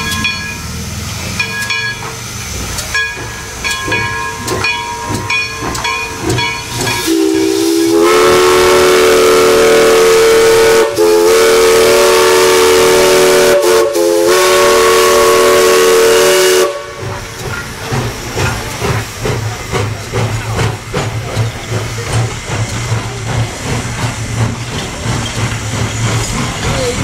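East Broad Top No. 15 Mikado steam locomotive's bell ringing in uneven, stuttering strokes, which is its automatic bell ringer not working right. About eight seconds in, the steam whistle blows a long chord for roughly nine seconds, broken twice by short gaps. Then the train rolls past with a steady low rumble and clatter.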